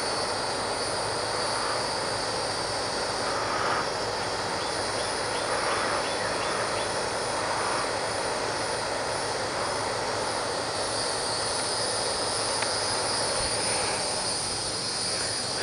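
Steady chorus of crickets and other insects, an even high-pitched buzzing over a constant background hiss.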